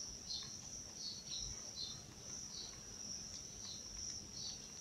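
Faint background insect chirping: a steady high trill with shorter chirps repeating about twice a second.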